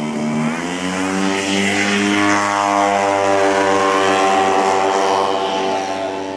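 Radio-controlled scale Corsair's engine opening up to full throttle for takeoff, the pitch rising over the first second, then running steadily as the plane climbs away, dropping slightly near the end.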